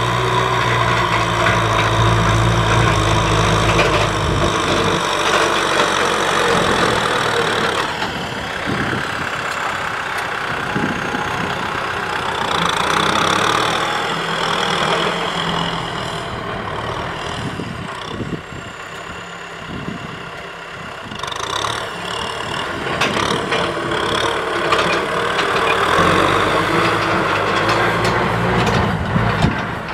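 Kubota M6040SU tractor's diesel engine running steadily under load while pulling a disc plough through dry field soil. It is loudest at the start and near the end and quieter in the middle.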